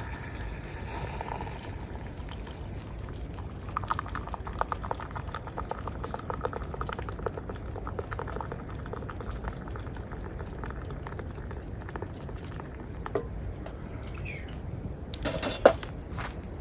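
Hot water poured from an enamel kettle into a wooden cup to make coffee, a trickling splash lasting several seconds. Near the end there is a brief louder clatter.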